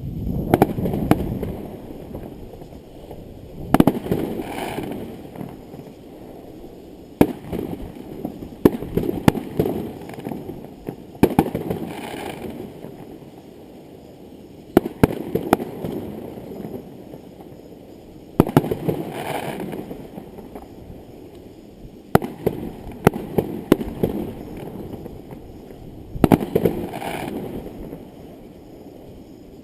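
Fireworks display: shells bursting with sharp bangs every three to four seconds, some in quick pairs, each followed by a rumbling, echoing tail.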